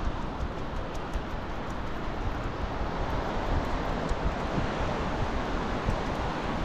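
Wind buffeting the microphone of a GoPro worn by a running dog, over the steady wash of surf on the shore.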